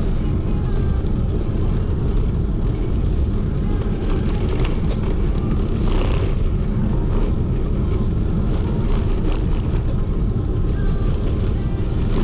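Wind buffeting an action camera's microphone on a moving bicycle: a steady low rumble with no break.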